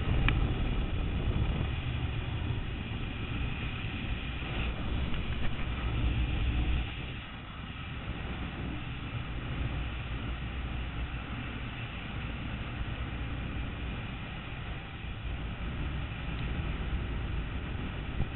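Wind rushing over a GoPro microphone during a zip-line ride, with a steady low rumble that eases about seven seconds in.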